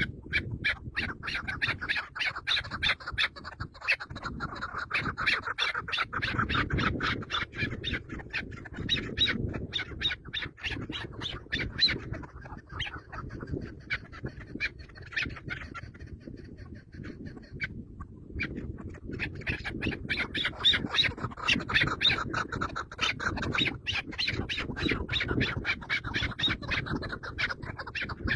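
Birds squawking: a dense, rapid chatter of harsh calls that thins briefly about two-thirds of the way through.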